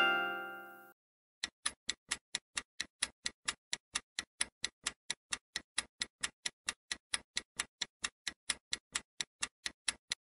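A clock-style ticking sound effect for a quiz countdown timer, even sharp ticks at about four a second. In the first second, the last notes of a ringing musical jingle fade out before the ticking starts.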